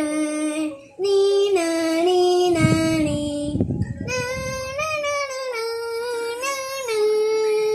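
A young child singing a slow tune in long held notes that step up and down in pitch, in three phrases with short breaks about a second in and near the middle.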